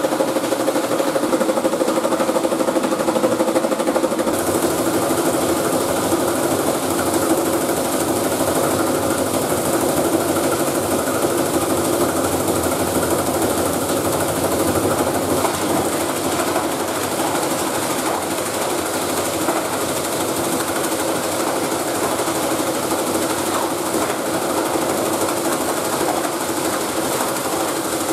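Belt-driven plastic crushing machine (granulator) running and chopping scrap plastic: a steady motor hum under a dense, continuous clatter of blades and plastic pieces.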